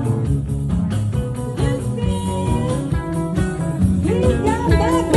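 A band playing a blues-rock number live, with electric guitar, bass and drums keeping a steady beat.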